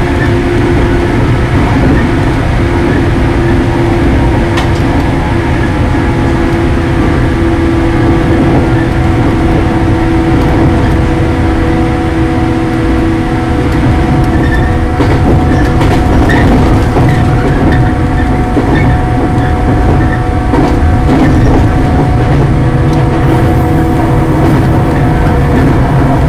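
Shinano Railway 115 series electric multiple unit running, heard from the driver's cab: a steady rumble of wheels on track with several steady humming tones and a few faint clicks.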